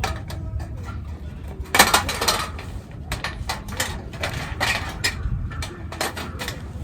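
Irregular clinks, clicks and knocks of metal camp cookware and gear being handled, loudest about two seconds in, over a steady low rumble.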